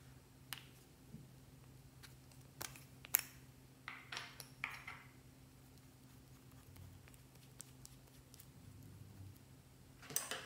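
Plastic lip balm tubes being handled and uncapped: a few sharp clicks and taps from the caps and tubes, with a stretch of soft scraping in the middle and another cluster of clicks near the end, over a faint steady low hum.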